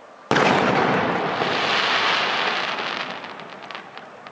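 An aerial firework shell bursts with a sudden loud bang about a third of a second in. A long noisy rumble follows and fades over about three seconds, with a scatter of small crackling pops near the end.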